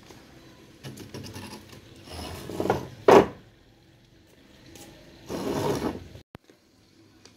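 Bouts of scraping and rattling handling noise, four in all, the loudest a sharp scrape about three seconds in.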